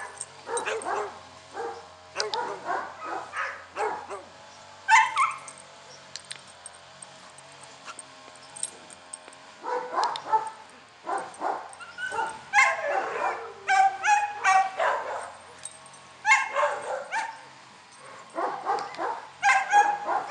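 A dog barking and yipping in short bursts, again and again, with pauses between clusters of calls.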